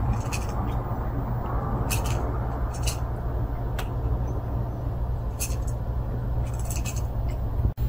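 Steady low outdoor rumble with a few faint, irregular clicks scattered through it.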